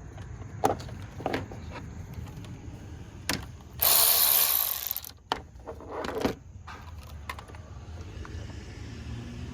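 Ratchet and socket clicking and turning as the E8 inverted-Torx bolt holding a camshaft position sensor is screwed back in, with scattered sharp clicks and a louder, hissy stretch about four seconds in lasting about a second.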